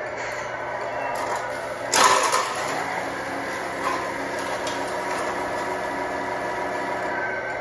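1/14 Tamiya Grand Hauler RC truck running steadily under load as it drags a pull sled slowly across concrete. A short, louder burst of rasping noise comes about two seconds in.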